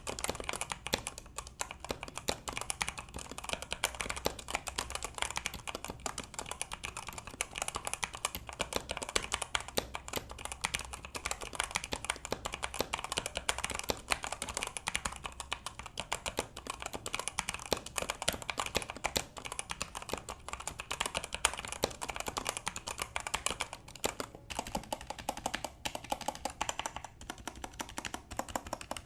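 Continuous fast typing on an E-Yooso Z87 budget mechanical keyboard: a dense, irregular patter of key clicks with a couple of brief pauses near the end.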